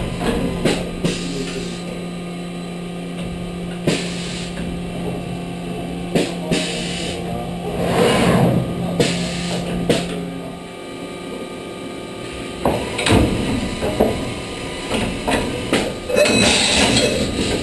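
Tool magazine and automatic tool changer of a horizontal machining center working. A steady drive hum stops about ten seconds in, with irregular mechanical clunks and knocks throughout and spells of hissing around eight seconds and near the end.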